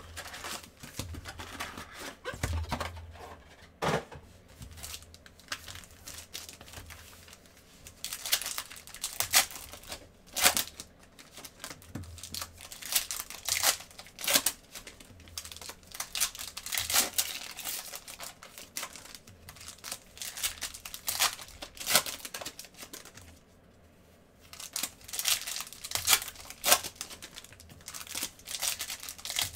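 Foil wrappers of Panini Prizm basketball card packs being torn open and crinkled by hand: a run of sharp rips and crackles, with a brief pause near the end.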